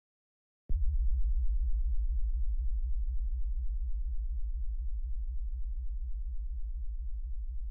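Deep, steady bass drone from a film soundtrack, starting suddenly with a soft hit less than a second in and slowly fading.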